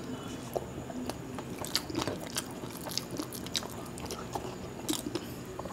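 A person chewing mouthfuls of khichuri eaten by hand, with faint scattered mouth clicks and smacks.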